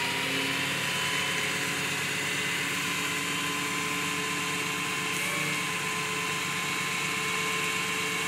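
Jerr-Dan rollback tow truck running, its engine and hydraulic pump giving a steady hum with a thin whine while the levers work the bed.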